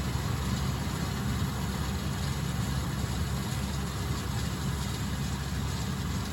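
John Deere tractor's diesel engine running steadily while pulling a round baler through hay, a low even drone with no sudden changes.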